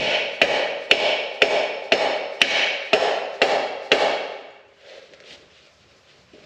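A hammer struck about nine times at an even two blows a second, each blow ringing, then it stops.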